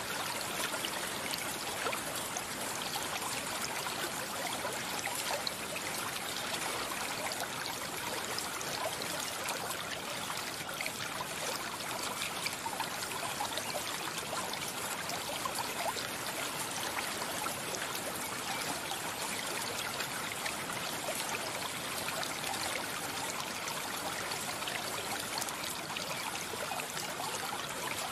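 Mountain stream running steadily: an even rush of flowing water with fine trickling and small splashes throughout.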